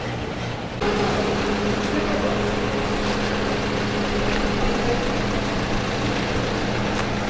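Steady mechanical hum under a broad rushing noise, which steps up suddenly about a second in.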